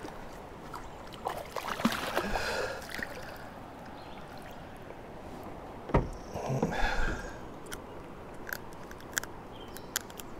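A hooked Alabama bass splashing and sloshing at the surface as it is played and lifted from the water beside a plastic kayak, with a sharp knock about six seconds in. A few light clicks and knocks of the fishing rod and gear against the kayak follow near the end.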